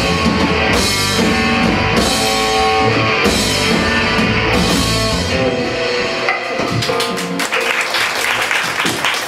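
Live rock band with electric guitars, bass and drum kit playing the last bars of a song, with cymbal crashes. The band stops about five or six seconds in, the last chord rings out, and the audience starts applauding near the end.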